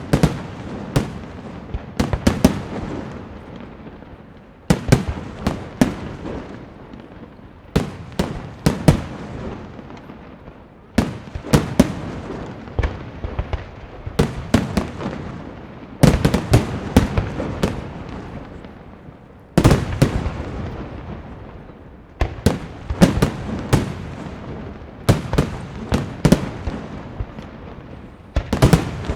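Fireworks display: volleys of sharp bangs about every three seconds, each cluster of bursts trailing off in a rumbling echo.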